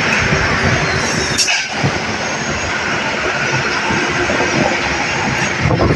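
Steady roar of traffic and wind noise from vehicles moving at speed, with only faint steady tones under it.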